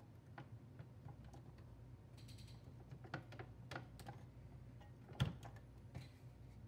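Faint clicks and taps of a plug-on memory upgrade board (the Triad 512K) being pressed and worked down onto the motherboard chips of a Tandy Color Computer 3, about a dozen irregular clicks with one louder click just after five seconds in.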